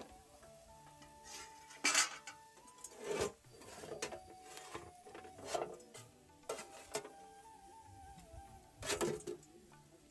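Metal utensils clanking and scraping against a cooking pot several times, with the loudest knocks about two seconds in and near the end. Quiet background music plays under it.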